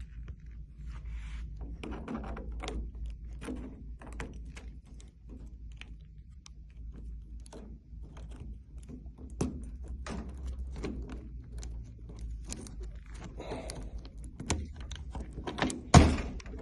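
Irregular small metal clicks, taps and scrapes from fitting a new lock into a vending machine door, with one loud thunk near the end.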